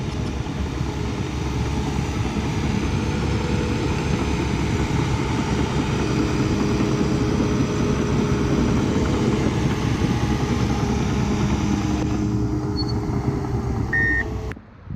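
Diesel engine of a heavy earthmoving machine running steadily under work. The sound cuts off abruptly near the end.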